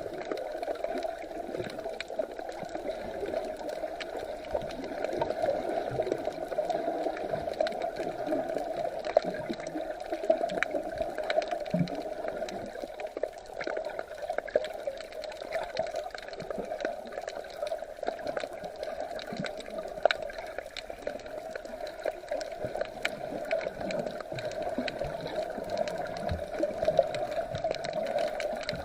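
Sea water gurgling and sloshing, with a steady muffled wash of water and many small crackles and clicks throughout.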